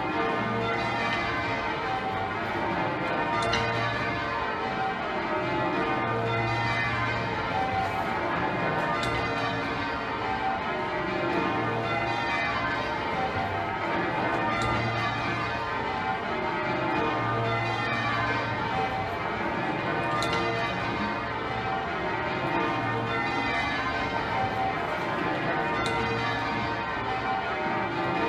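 Exeter Cathedral's ring of twelve heavy bells, with a 72 cwt tenor, change ringing. The strokes follow one another in a fast, continuous stream, and a deep hum returns about every three seconds.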